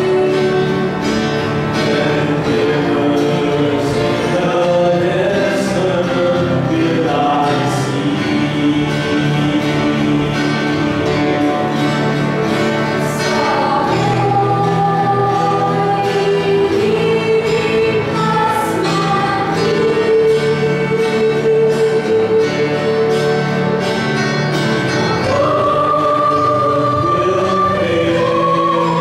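Mixed choir of women and men singing a worship song in harmony, with several held notes sounding at once.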